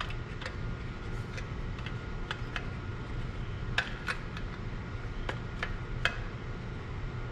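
Light plastic-on-metal clicks and knocks, about a dozen at irregular intervals, as the plastic fuel tank of a 79cc Predator small engine is handled and seated onto the engine, over a steady low hum.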